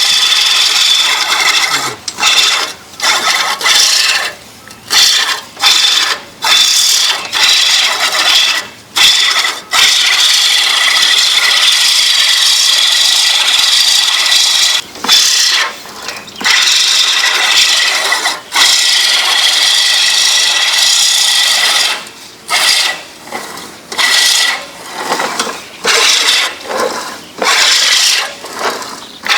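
Hand push reel lawn mower cutting grass, its spinning blades whirring and rasping. It goes in short pushes about a second apart, then runs almost unbroken for about twelve seconds through the middle, then returns to short pushes.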